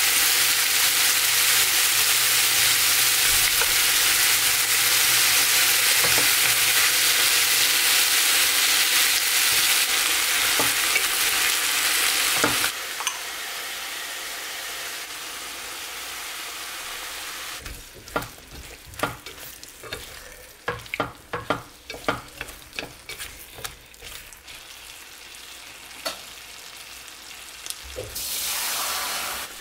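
Chicken pieces and leek sizzling hard in a stone-coated pot on a gas burner as they are turned with wooden chopsticks; the sizzle drops away abruptly about 13 seconds in. After a stretch of quieter hiss, irregular clicks and taps of the chopsticks against the pot follow as the red chili seasoning is stirred through the chicken, and a short burst of sizzling comes back near the end.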